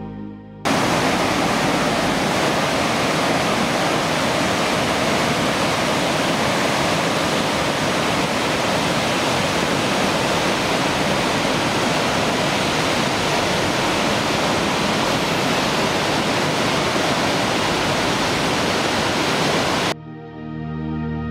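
Tuolumne River cascade pouring down granite slabs: a loud, even rush of white water that cuts in abruptly about half a second in and cuts off just as abruptly about a second before the end. Soft background music plays at either edge.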